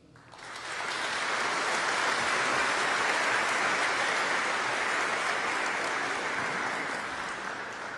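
Audience applauding: the clapping swells over the first second, holds steady, and begins to fade near the end.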